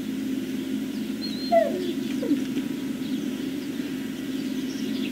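A Great Dane gives one short, falling whine about a second and a half in, over a steady low hum.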